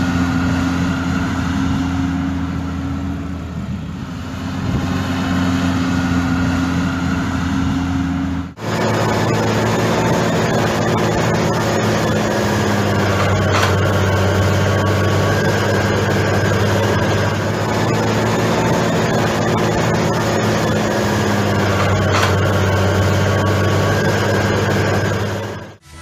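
Radio-controlled 1:10 scale model Claas Xerion tractor driving while pulling a trailer, giving a steady engine-like hum. The hum breaks off briefly about eight and a half seconds in and resumes with a somewhat different pitch.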